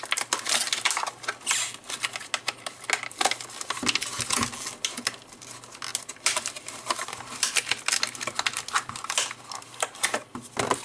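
Plastic blister packaging being worked open by hand to free the foam darts, with rapid, irregular clicking and crackling throughout.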